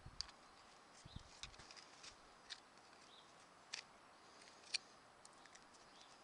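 Faint scrapes and clicks of a tool picking stones and dirt out of a mule's hoof, a few short strokes spread out, the sharpest about three quarters of the way in.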